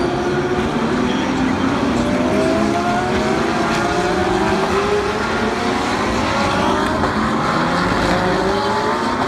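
Several IMSA WeatherTech race cars accelerating through the track, their overlapping engine notes rising in pitch as they pass one after another.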